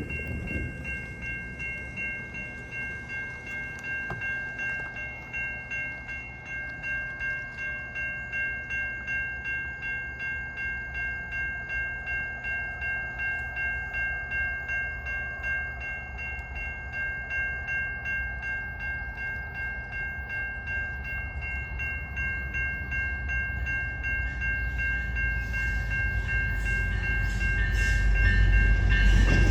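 Level-crossing warning bell ringing steadily at about one and a half strokes a second. A low train rumble builds near the end as a freight train approaches the crossing.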